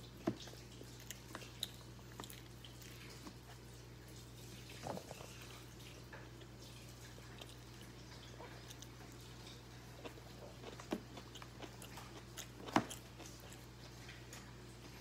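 Someone chewing food: scattered soft clicks and mouth sounds, with a sharper click near the end, over a steady low hum.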